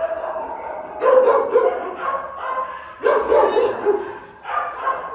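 A dog barking in repeated bursts of a few quick barks: about a second in, again around three seconds, and again shortly before the end.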